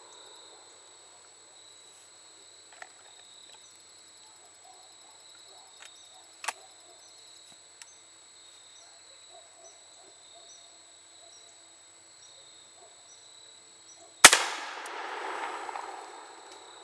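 A 12-gauge shotgun fires once, about 14 seconds in, a single loud report followed by a rumbling echo of about two seconds. The shell holds a .69 calibre lead roundball over 85 grains of Triple Seven FFFg black-powder substitute. Before the shot there are only a few faint clicks and a steady high insect-like tone.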